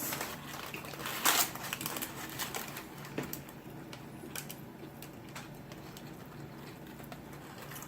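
Quiet eating sounds: scattered small clicks and short rustles of handling and chewing a burger, with a brief louder rustle about a second in, over a faint steady hum.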